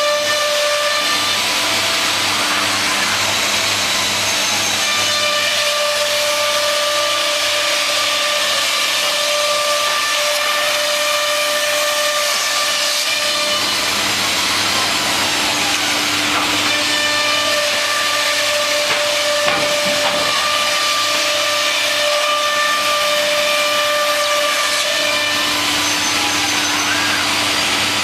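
C.R. Onsrud CNC machining center running a job: a loud, steady cutting and air noise with a high spindle whine that drops out and comes back a few times.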